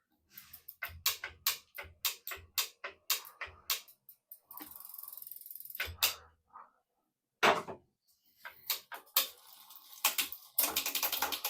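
Quick, irregular metallic clicks and ticks from work on a bicycle's rear brake during spring-tension adjustment, with a short hiss about halfway through.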